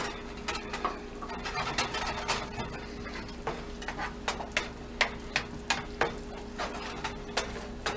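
A wooden spoon stirring a thick, reducing mushroom cream sauce in a frying pan, knocking and scraping against the pan in irregular clicks, about two or three a second.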